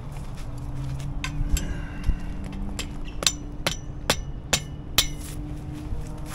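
Rubber mallet driving a stake at the foot of a pop-up canopy leg: about nine sharp blows, roughly two a second. Most blows carry a short metallic ring.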